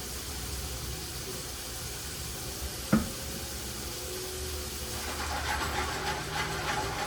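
Mini potatoes sautéing in a pot with a steady sizzling hiss that turns more crackly in the last couple of seconds. A single sharp knock comes about three seconds in.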